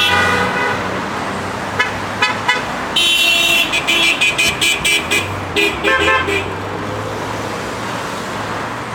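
Passing cars honking their horns: a long honk about three seconds in, then a quick string of short beeps from horns of different pitch, over steady road traffic.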